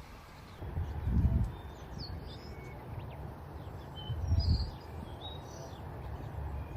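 Small birds chirping in short, scattered calls over a low outdoor hum, with two brief low rumbles, about a second in and again after four seconds.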